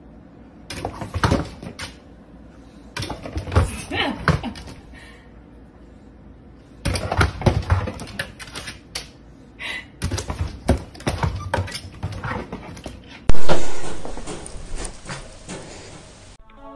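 Dog pushing and pawing at a plastic pet door, the panels rattling and knocking in bursts of quick clatter. Near the end a sudden loud rushing noise fades away over a couple of seconds.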